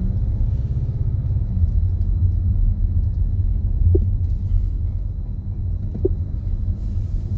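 Steady low rumble with no speech, and two short faint tones about four and six seconds in.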